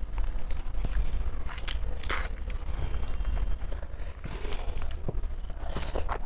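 Close-miked eating sounds of a person eating rice with curry: scattered soft clicks and smacks. A steady low hum runs underneath.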